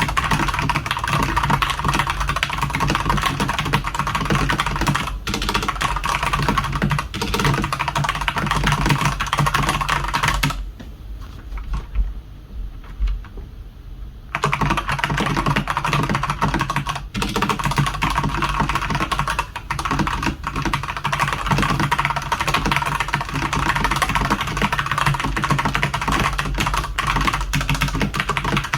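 Fast typing on a Redragon Sindri K671 mechanical keyboard with Outemu Red linear switches: a dense, continuous run of keystroke clacks. It breaks off for about four seconds near the middle, then resumes.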